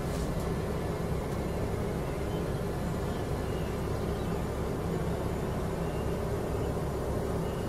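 Steady low outdoor rumble with a faint, even hum through it from the Xiaomi Mi Drone 4K's propellers as the quadcopter flies a steady automatic orbit.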